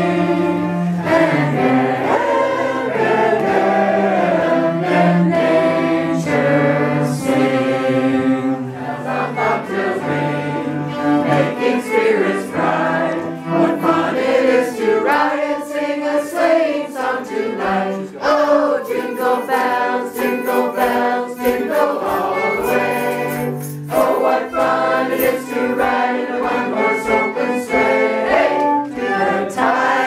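A string quartet, the cello's low notes clear, playing a Christmas carol while a roomful of people sing along.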